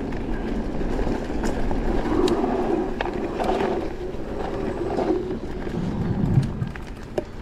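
Electric mountain bike rolling fast over a dirt forest trail: steady tyre and wind noise with frequent chain and frame rattles and clicks. About six seconds in the wheels hit wooden bridge planks with a low thump and a sharp knock.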